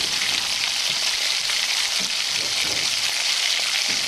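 Besan batter drops (boondi) frying in a pan of hot oil, a steady, even sizzle.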